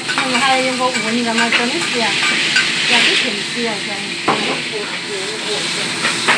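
Vegetables sizzling in a hot wok as they are stir-fried, a steady frying hiss with a couple of sharp clicks of the metal spatula against the wok.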